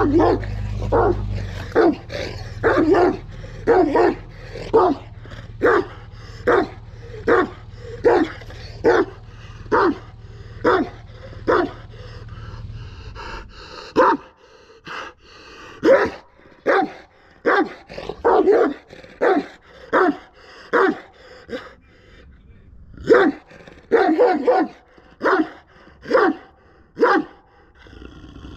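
Kangal shepherd dog barking over and over, deep barks about once a second, with a short pause about two-thirds of the way through.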